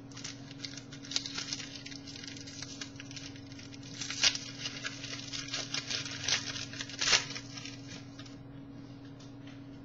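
Trading cards being handled and flipped through: a run of light clicks and rustles, with two sharper snaps about four and seven seconds in. A steady low electrical hum runs underneath.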